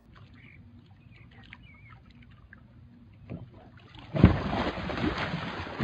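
Faint scattered sounds, then a heavy thump about four seconds in followed by sloshing and splashing water.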